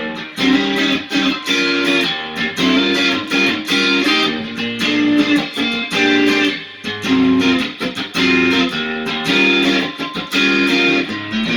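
Electric guitar played in choppy chords and short licks through a Lovepedal Supersix overdrive pedal into a Fender Hot Rod Deville tube amp, giving a driven, distorted tone.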